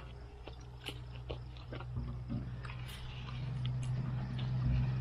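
Scattered crunching and crackling as onions are pulled from the garden soil and their leafy tops rustle. A low steady hum grows louder toward the end.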